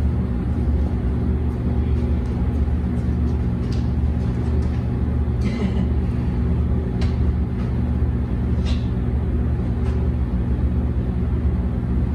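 A steady low machine hum with several fixed pitches, unchanging throughout, with a few faint clicks and knocks as the upholstered panel is handled and set against the wall.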